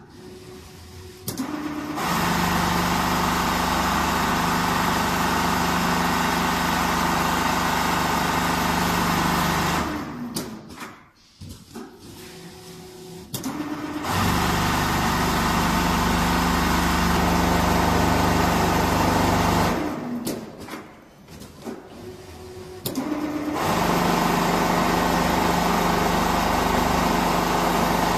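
Four-head CNC sewing machine stitching quilted jacket panels, its heads running fast and steady with a constant hum. It starts up about two seconds in, then pauses twice for a few seconds before running again.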